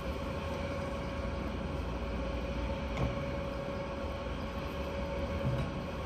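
Steady machinery hum over a low rumble, with one faint click about halfway through.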